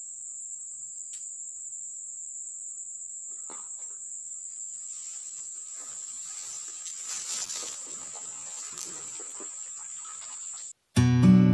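Insects droning on one steady high-pitched note, with scattered rustling and brushing through the middle part. It cuts off suddenly near the end, and acoustic guitar music begins.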